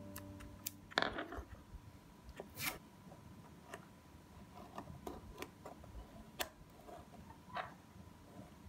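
Faint handling of a masking-tape-covered paperboard panel and a pen: a sharp crackle of tape and paper about a second in, then scattered light clicks and rustles. A music chord dies away in the first second.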